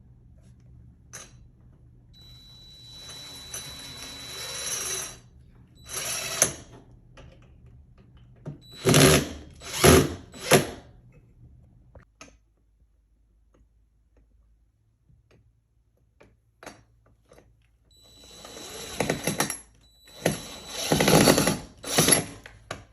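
Cordless drill driving screws into blind mounting brackets, running in short bursts with pauses between them, the loudest cluster near the middle and another long run near the end.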